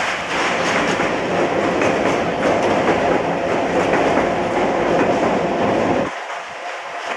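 Passenger train running over a long river bridge, heard from aboard a coach: steady wheel clatter and rumble. The deep low rumble drops away suddenly about six seconds in.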